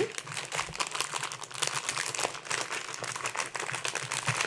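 A clear plastic bag of wrapped candy crinkling as it is handled and pushed down into a paper treat mug, with an uneven, crackly rustle throughout.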